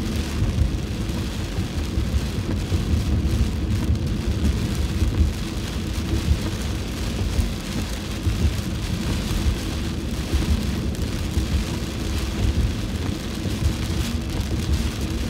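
Heavy rain drumming on a car's roof and windshield, heard from inside the cabin as a steady, dense patter over a low rumble.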